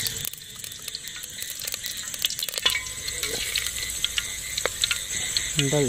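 Hot oil sizzling in a stainless-steel pot over a wood fire, with ingredients stirred in it by a wooden spatula, giving scattered clicks and scrapes over the steady hiss.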